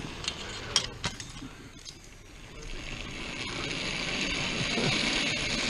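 Zipline trolley pulleys rolling along the steel cable: a few sharp clicks in the first second, then a steady whirring hiss that grows louder as the rider runs in toward the landing platform.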